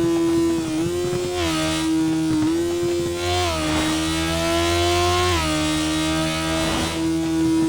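Motorcycle engine running hard at speed: a steady high engine note, with a second note climbing for about two seconds from around the middle and dropping back sharply, like revs rising in gear and falling at a shift.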